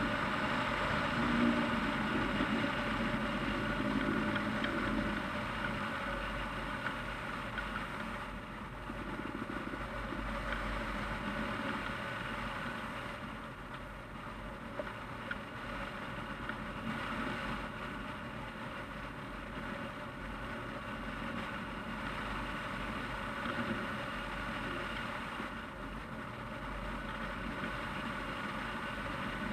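Steady rush of wind over a camera mounted on a hang glider in flight, with a constant hum running through it.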